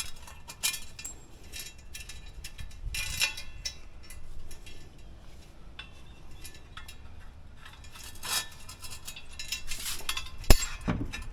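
Irregular metallic clinks, clicks and clanks as a car jack is worked under the car, with a sharp metal knock about ten and a half seconds in.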